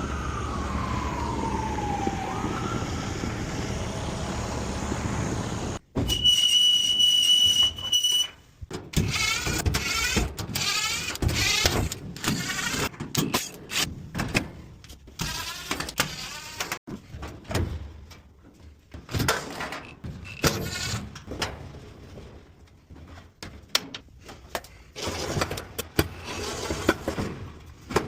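GE clothes dryer squeaking as it runs: for several seconds a steady running noise with a whine that falls and then rises, a short steady high tone, then a long run of irregular, wavering squeaks and squeals.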